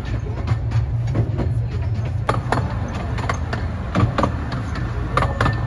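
Narrow-gauge passenger train under way, heard from an open carriage: a steady low rumble with frequent sharp clicks and rattles of wheels over the rail joints, several a second. The train is hauled by a small diesel locomotive.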